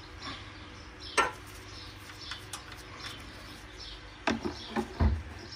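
Metal spanner clinking on the steel oil drain plug of a car's sump as the plug is worked loose: one sharp click about a second in, then a quick cluster of knocks and a dull thump near the end.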